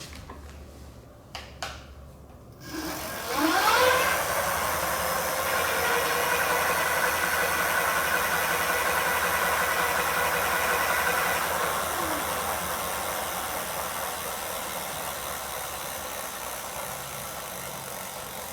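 Lectric XP 2.0 e-bike's rear hub motor spinning the lifted rear wheel: after a few light clicks, the motor whines up to speed about three seconds in, runs steadily, then slowly fades over the last several seconds. The motor running shows the replacement controller is working.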